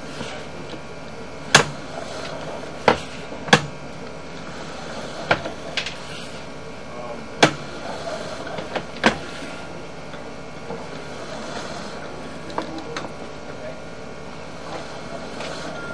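A sewer inspection camera's push cable is pulled back through the drain line over a steady hum. Irregular sharp clacks and knocks come about half a dozen times in the first nine seconds, then a few fainter ones.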